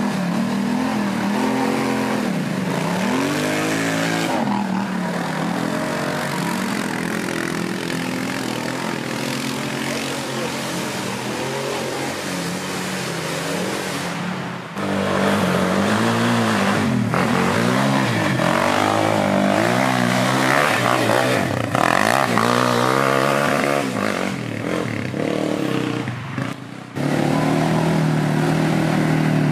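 Quad bike (ATV) engines revving up and down again and again, the pitch rising and falling with throttle. The sound breaks off abruptly and resumes twice, about 15 and 27 seconds in.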